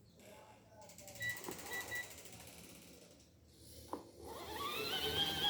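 Mini washing machine's spin-dryer motor starting up about four seconds in, its whine rising in pitch and then holding steady as the basket comes up to speed. Before it there is mechanical ticking and a sharp click.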